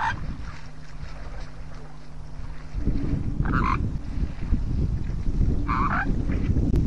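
Short croaking calls from an animal at a waterhole, three of them about two seconds apart, over wind rumbling on the microphone that grows louder about three seconds in.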